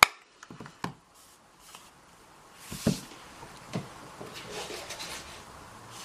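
Quiet handling sounds of an ink pad and a clear acrylic stamp block on a craft mat: a sharp click at the start, then a few soft taps and thuds about a second, three and four seconds in, with light rustling between.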